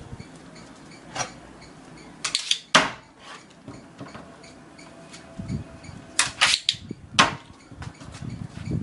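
Sharp clicks and knocks from a white wardrobe door being pushed shut and handled, a few single and some in quick pairs.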